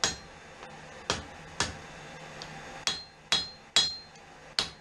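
Blacksmith's hand hammer striking hot steel on an anvil, about seven blows at uneven spacing, each with a short metallic ring. The smith is thinning down the knife blank before bending it.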